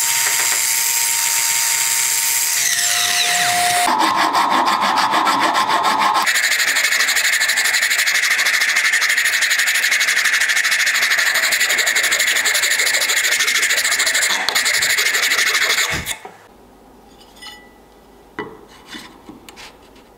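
Power saw with a circular blade cutting ash, running steadily, then its whine drops in pitch as the blade winds down. A hand file then rasps rapidly over the ash handle for about twelve seconds and stops abruptly, followed by a few light knocks.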